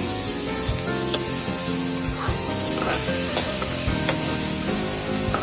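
Chopped onions and garlic sizzling in hot oil in an aluminium kadhai while a metal spatula stirs and scrapes them, with scattered clicks of the spatula against the pan. The onions are being sautéed until soft and lightly browned.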